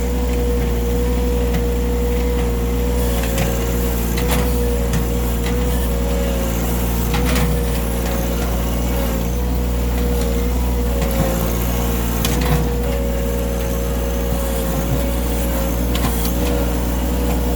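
John Deere 1-series compact tractor's three-cylinder diesel engine running steadily during backhoe digging, with a steady whine over it. A few scattered knocks come from the bucket working dirt and half-rotted wood.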